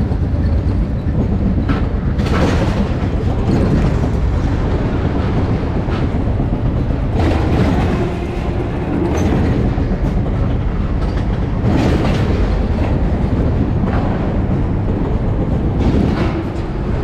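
Spinning roller coaster car running along its track, with a loud continuous rumble and rattle of the wheels on the rails, surging several times as the car swings and takes the track's turns and dips.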